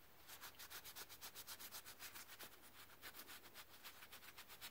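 Cloth rag rubbed quickly back and forth over the steel end of a Ford Model T transmission band, a faint, even scrubbing at about five or six strokes a second.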